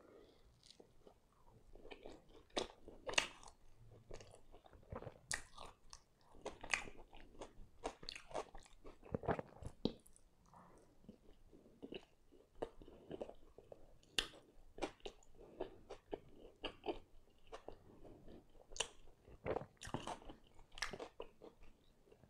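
Quiet chewing of a mouthful of chicken and cheese pan pizza, heard as soft, irregular mouth clicks and smacks.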